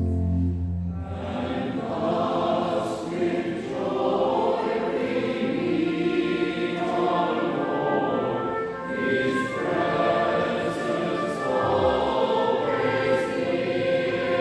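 A choir singing together in sustained, shifting chords.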